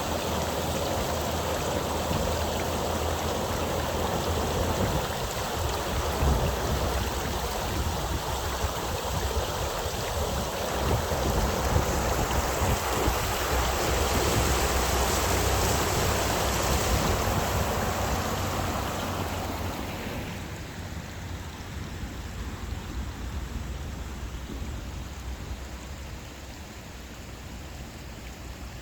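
Waterfall: steady noise of falling water with a low rumble underneath. About twenty seconds in it grows clearly quieter and loses much of its hiss.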